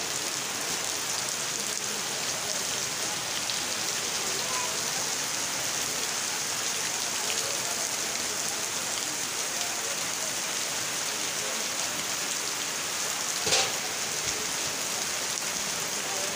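Heavy rain falling steadily on a wet street, an even hiss throughout. About thirteen and a half seconds in there is a single brief louder knock.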